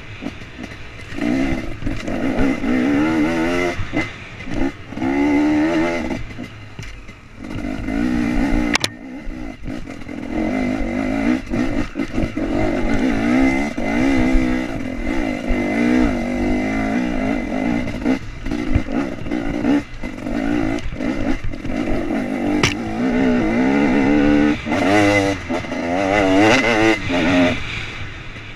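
KTM 250 EXC two-stroke enduro motorcycle engine being ridden off-road, revving up and down over and over as the throttle is opened and closed. Two sharp knocks cut through it.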